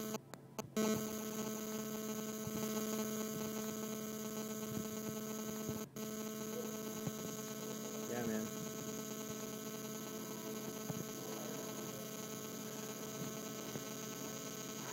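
A steady electrical hum with a buzzy edge. It cuts out for a moment near the start and again about six seconds in.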